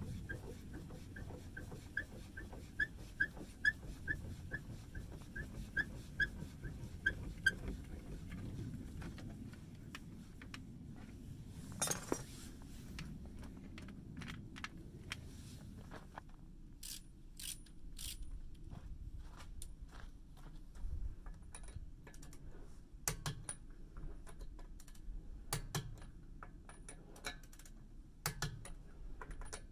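Scissor jack being cranked, giving a short high squeak about three times a second that stops about seven and a half seconds in, followed by scattered light metallic clicks and taps.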